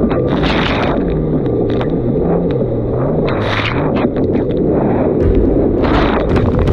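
Yamaha GP1800R SVHO WaveRunner's supercharged engine running under way, its pitch rising and falling about once a second, with repeated short bursts of hiss.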